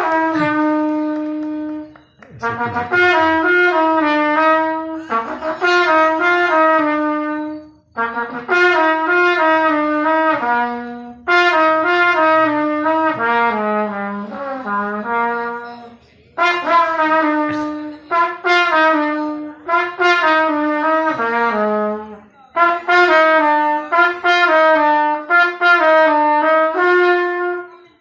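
A trumpet playing a melody solo, in phrases a few seconds long with short pauses between them.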